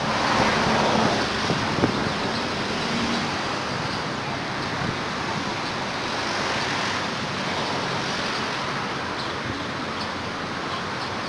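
Steady road traffic noise with a low engine hum, a little louder in the first couple of seconds.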